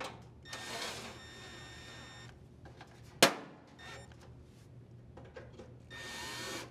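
Screws being driven into a GE dryer's blower housing: a screwdriver noise of about two seconds, a single sharp click about three seconds in, and a second, shorter stretch of screwdriver noise near the end.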